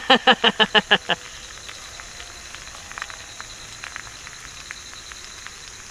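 A man laughs in a quick run of about eight 'ha' pulses lasting about a second. Then an egg frying in a pan sizzles quietly, with scattered small crackles.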